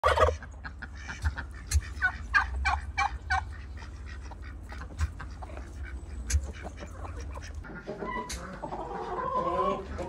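A flock of chickens and turkeys calling. A quick run of short clucks and squawks comes in the first few seconds, then scattered calls, and overlapping calls near the end.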